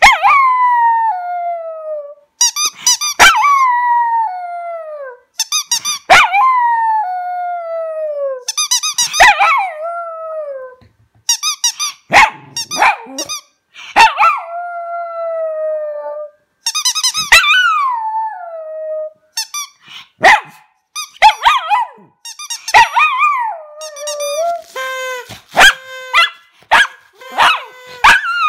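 Small white dog howling, "singing": a series of high, yelping howls, each falling in pitch over a second or two and coming about every three seconds, then shorter and quicker over the last third.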